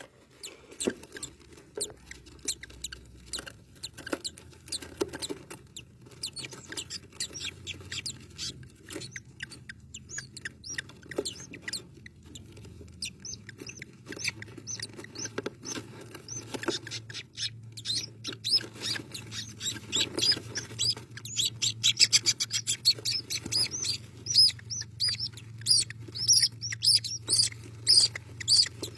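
Rainbow lorikeet chick at hatching, giving thin high-pitched squeaks among soft clicks and taps; from about two-thirds of the way in, the squeaks come in a fast, louder run of repeated cheeps. A steady low hum lies underneath.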